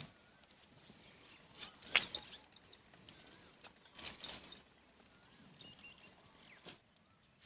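Short hissing squirts of milk as a water buffalo is milked by hand, coming in two quick runs, about two seconds in and about four seconds in, with one more near the end. Faint bird chirps sound in the background.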